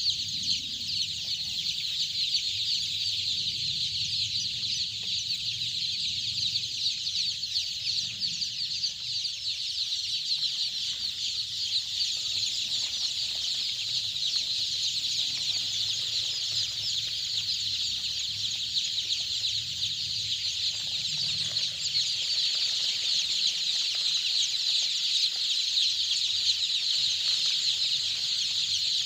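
Dense, continuous high-pitched peeping of hundreds of five-day-old Golden Misri chicks crowded together in a brooder, growing a little louder in the last several seconds.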